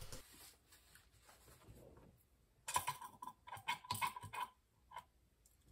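A quick run of light clicks and taps with a slight ring, from the green plastic isopropyl alcohol dispenser bottle being handled on the workbench. One more click follows near the end.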